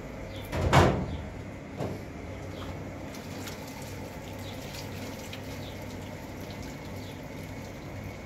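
Rice being rinsed under a running kitchen tap: water running into plastic bowls, with one short loud splash about a second in and a smaller knock soon after. Faint bird chirps in the background.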